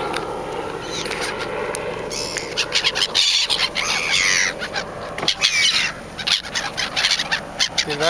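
A flock of gulls calling overhead: many short, overlapping cries, with a longer falling call about four seconds in.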